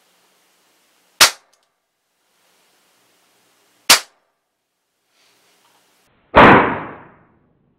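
Hammerli Pneuma .177 PCP air rifle firing: two sharp cracks about a second in and near the four-second mark, then a louder blast a little after six seconds that trails off over nearly a second.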